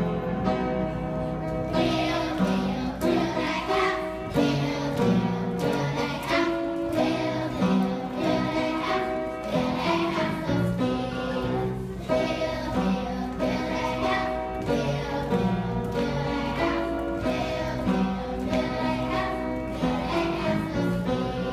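A group of young children singing a catchy song in unison to piano accompaniment.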